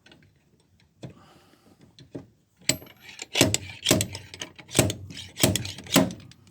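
Slide hammer pulling on a dented steel van sill: a couple of light knocks, then about six sharp metallic clanks in quick succession as the weight is slammed against its stop. The dent is too stiff to come out with it.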